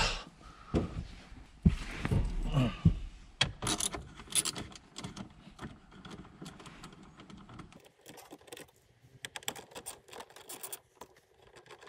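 Irregular light metallic clicks and rattles of small hand tools and bolts being handled while unbolting dashboard trim around a car's navigation unit.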